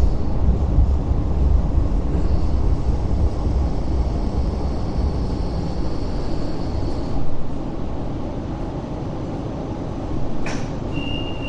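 Hong Kong LRT Phase 5 light rail vehicle heard from inside, rumbling as it slows into a stop, with a high whine for a few seconds while it brakes. It then comes to a standstill and the rumble drops. Near the end comes a sharp click, and a steady high beep begins.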